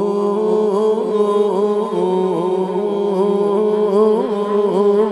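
A man singing a naat, holding one long note on "Allahu" with rippling, wavering turns in the melody and no break for breath.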